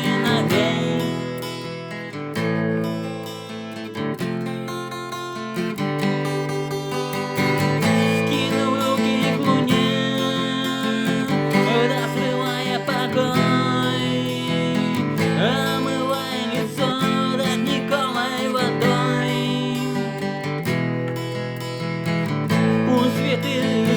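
Music: an instrumental passage of a song, led by strummed acoustic guitar with a gliding melody line over the chords.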